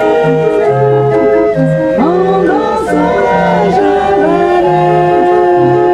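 Hand-cranked barrel organ (orgue de barbarie) playing a tune read from a punched cardboard book: held notes changing in steps over a repeating bass. A voice sings along from about two seconds in.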